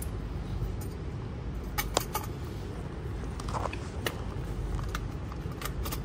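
Thin crumpled metal sheet being handled and pushed into the steel jaws of bolt cutters: crinkling and scattered sharp metallic clicks, three close together about two seconds in and single clicks later. A steady low hum runs underneath.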